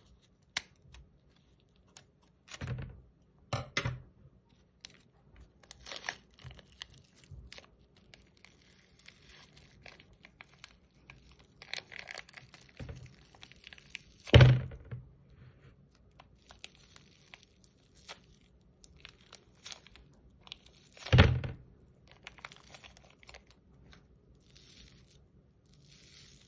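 Hands working slime: scattered crackling and clicking, with two loud thunks, one about halfway through and one about four-fifths of the way in.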